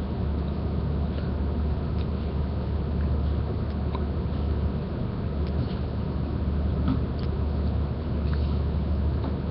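Steady low hum of background noise, with a few faint scattered clicks.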